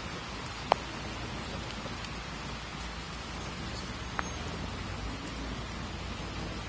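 Steady rain with a low rumble underneath, and two sharp ticks, one under a second in and one about four seconds in.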